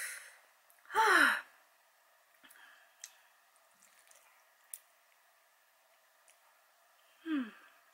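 A woman lets out a loud sigh-like moan with falling pitch about a second in, and a shorter, quieter one near the end: reactions to the burn of very spicy noodles. Faint clicks sound in the quiet stretch between.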